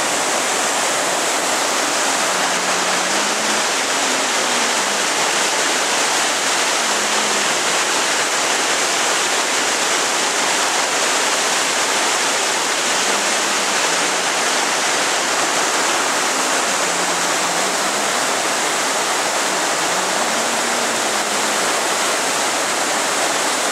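Waterfall on a creek: a steady, loud, unbroken rush of falling and churning white water.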